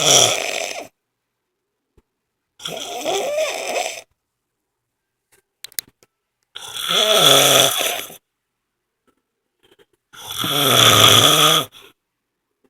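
A woman snoring loudly, one rasping snore about every three and a half to four seconds, four in all, with silence between.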